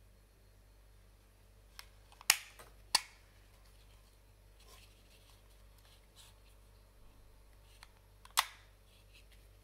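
Lenovo thinkplus GM2 Pro earbuds and their plastic charging case clicking as they are handled: two sharp clicks a little over two and three seconds in as the earbuds snap into their slots, and another sharp click about eight seconds in.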